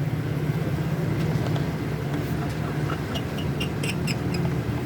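Honda Pridor motorcycle engine idling steadily, with a run of light clicks from about two seconds in.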